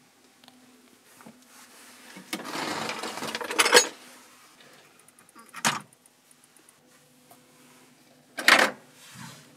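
Metal hand tools being handled in a workshop: a rummaging rattle lasting about a second and a half that ends in a sharp clank, a single click a couple of seconds later, and near the end another short metallic clank as a ratchet wrench is taken off its wall hook.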